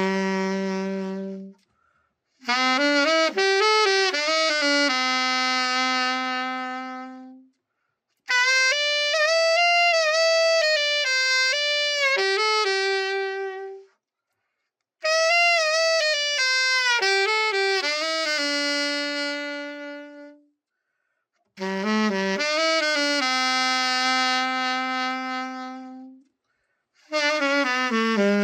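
A Selmer Series III Jubilee alto saxophone played solo, a play test after a full overhaul: short melodic phrases, each ending on a long held note, with brief silent gaps between them.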